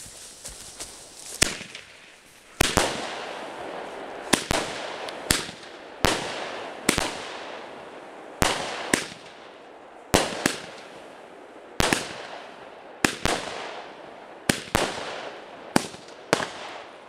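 A fireworks battery firing a string of shots, with sharp bangs about once a second starting a little over a second in. Each bang trails off in a short fading rush.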